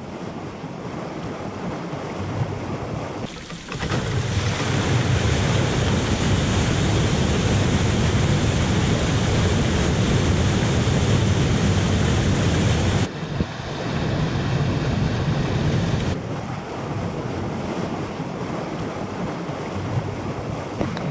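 Water gushing through opened lock paddles into a canal lock chamber as the lock fills: a steady rushing of churning water. It gets abruptly louder about four seconds in and shifts level twice more later on.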